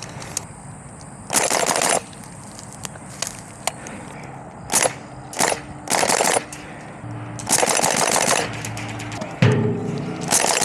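Airsoft guns firing several short bursts of rapid fire; the longest burst lasts about a second, past the middle.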